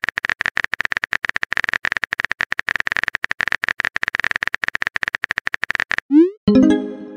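Rapid, dense run of keyboard-typing clicks, a texting-app typing sound effect, lasting about six seconds and stopping abruptly. It is followed near the end by a short rising pop and a brief pitched message-notification sound.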